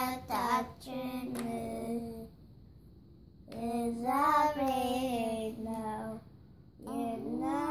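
Young girls singing an Ethiopian Orthodox hymn (mezmur) together, in three sung phrases with short pauses between them.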